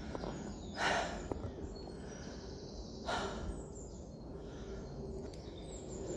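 A man breathing hard while walking, with two loud breaths, about a second in and just after three seconds, over a low rumble and a couple of faint clicks.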